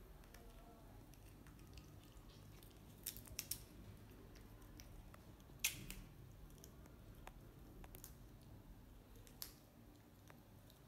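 A baby macaque chewing crisp plant food: a few sharp crunches and clicks, three close together about three seconds in, the loudest just before six seconds and one more near the end, over faint room hiss.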